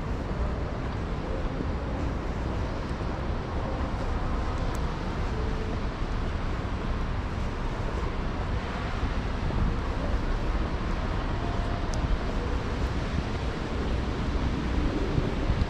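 Wind buffeting the microphone over a steady rush of city traffic from the road below, with a stronger gust near the end.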